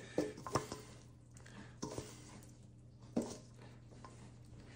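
Soft rustling of dressed salad leaves and a few light taps as salad is tipped from a stainless steel mixing bowl into a serving bowl and spread by a gloved hand, over a faint steady hum.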